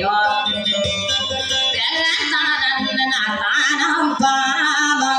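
A woman singing a dayunday song to her own acoustic guitar, her voice amplified through a microphone, with a wavering vibrato on held notes.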